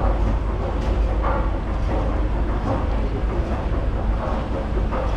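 Driverless metro train running, a steady low rumble without a break.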